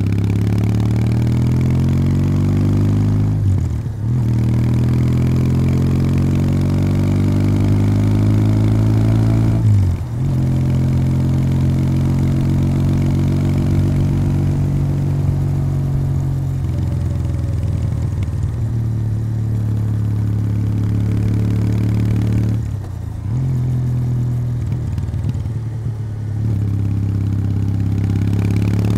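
Kawasaki W800's air-cooled parallel-twin engine running through its stock exhaust under way. The revs climb and drop back sharply at two gear changes early on, then hold steady at cruising speed, dip briefly when the throttle is eased and pick up again near the end.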